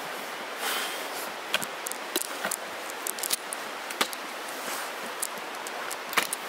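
Steady outdoor rustling hiss with scattered, irregular sharp clicks and light knocks, the loudest a little after six seconds in.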